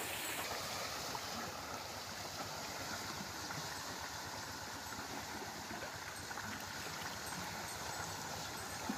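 Bullock-driven Persian wheel running, its chain of buckets steadily spilling water into the channel with a continuous splashing gurgle.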